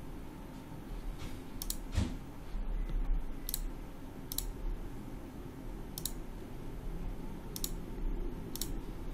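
Computer mouse clicking: several single sharp clicks, a second or more apart, over a low steady hum.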